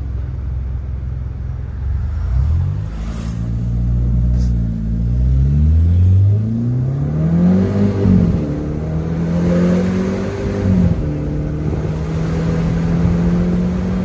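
Tuned Peugeot 308 THP's 1.6-litre turbocharged four-cylinder engine on a full-throttle 0–100 km/h run from a standstill. It holds steady revs, then climbs in pitch through the gears, dropping back sharply at the upshifts about eight and eleven seconds in.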